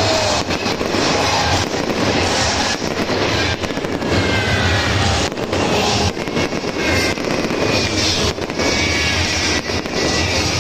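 Victory fireworks going off in rapid succession: a dense run of bangs and crackles with a few short whistles sliding in pitch, over a low rumble.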